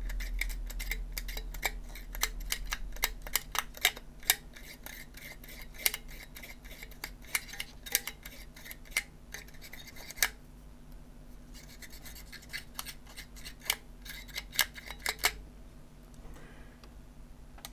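Sandpaper rubbed by hand on the tarnished metal spring battery contacts of a toy's plastic battery compartment, in quick scratchy strokes, cleaning off the black tarnish so the contacts conduct again. The strokes pause about ten seconds in, start again, and stop about fifteen seconds in.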